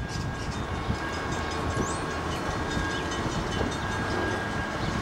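Amtrak passenger train running out of sight: a steady low rumble with a faint, steady high whine above it.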